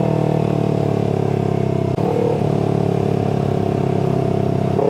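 Parallel-twin sport bike engine running steadily at cruising speed, heard from on board, with a brief dip in loudness about two seconds in.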